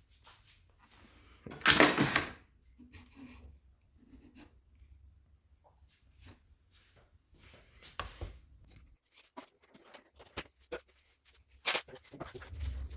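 Scattered handling noises: a loud rustling scrape about two seconds in, then light clicks and knocks, and a sharp knock near the end.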